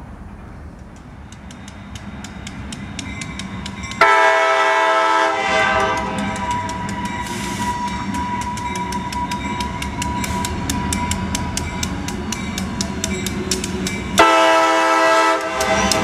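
Grade crossing bell ringing with rapid, even strikes as a CSX diesel freight locomotive approaches, its rumble growing louder. The locomotive's air horn sounds a long blast about four seconds in and a shorter one near the end.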